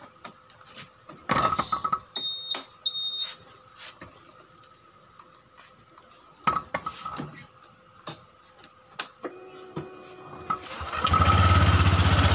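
Light clicks and knocks of hands working on the scooter's plastic rear panels, with two short high beeps early on. About 11 seconds in the Honda Vario 150 eSP's engine starts and runs at idle, started to test whether the rear rattle has been cured.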